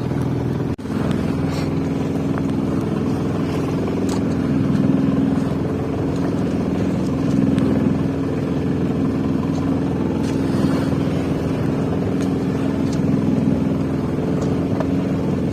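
A sailing yacht's inboard engine running steadily while the boat motors along, a constant drone.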